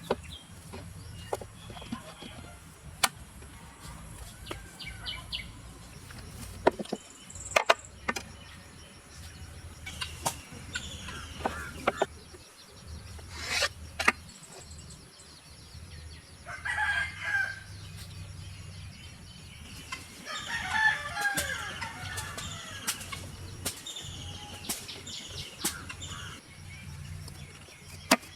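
A rooster crowing twice, about halfway through and again a few seconds later, with scattered sharp knocks and taps from work in the background.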